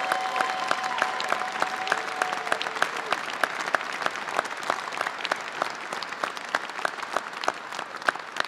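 Audience applauding: many hands clapping in a dense, steady patter that eases slightly toward the end.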